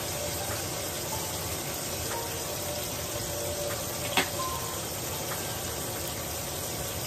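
Ribeye steak sizzling steadily in a hot frying pan, with a single sharp clink of a metal utensil about four seconds in.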